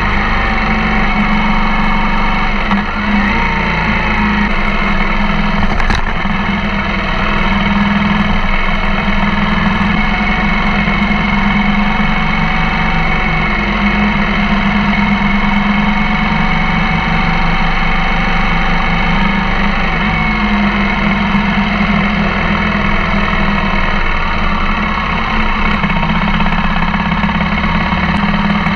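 Husqvarna TR650 Terra's single-cylinder engine running steadily at road speed, heard close up and distorted, with a few slow rises and falls in pitch and one sharp knock about six seconds in.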